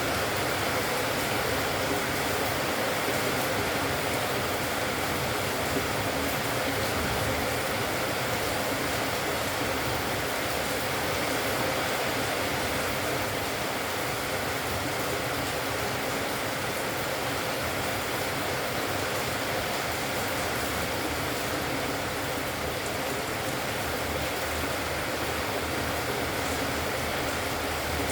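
Steady, even rushing noise like hiss or wind, unchanging throughout.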